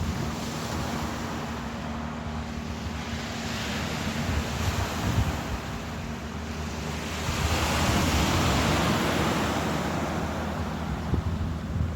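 Ocean surf washing ashore, one wave swelling loudest a little past halfway, with wind buffeting the microphone and a low steady hum underneath.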